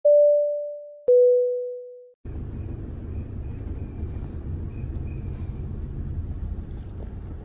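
A two-note descending chime, each note struck and fading over about a second. Then a steady low rumble of a moving vehicle.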